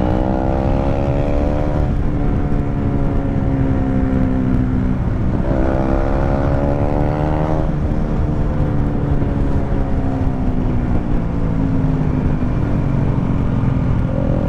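KTM Duke 390's single-cylinder engine pulling through the gears: the revs climb, drop at an upshift about two seconds in, climb again from about five seconds and drop at a second upshift near eight seconds, then slowly fall. Wind rumble on the helmet microphone underneath.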